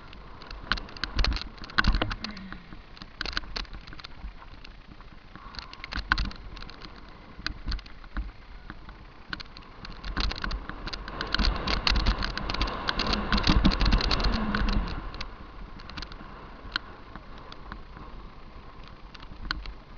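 Mountain bike rattling down a dirt trail: irregular clicks and knocks from the chain and frame over bumps, with wind rumbling on the mounted camera's microphone, loudest and roughest about ten to fifteen seconds in.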